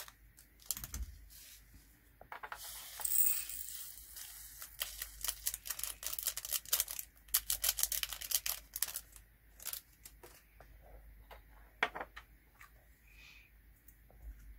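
Scissors snip open a small plastic bag of diamond-painting drills, followed by the bag crinkling. A dense patter of tiny clicks comes as the resin drills are poured through a plastic funnel, with a few scattered clicks near the end.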